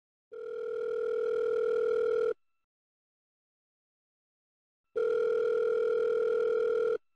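Telephone ringback tone on an outgoing call: two steady rings, each about two seconds long, with a pause of a few seconds between them, the sign that the line is ringing at the other end and not yet answered.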